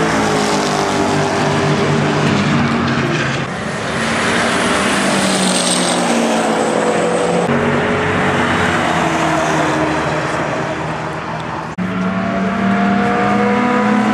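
Sprint-race cars accelerating down a straight at full throttle, engine pitch climbing and falling as they shift gears. About twelve seconds in the sound cuts off abruptly and another car's engine takes over.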